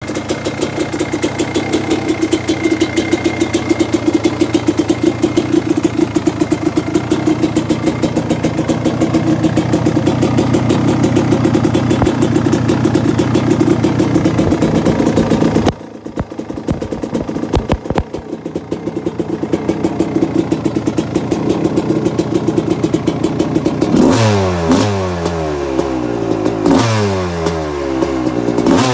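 1990 Suzuki RM250's two-stroke single-cylinder engine running after its fuel tank and carburettor have been cleaned: a steady fast idle that drops suddenly to a lower, uneven idle about halfway through, then several quick throttle blips near the end.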